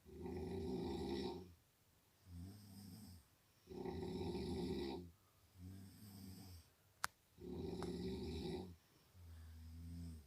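Snoring in a steady rhythm: a louder snore, about a second long, alternates with a lower, quieter one, three of each. A single sharp click sounds a little before the third loud snore.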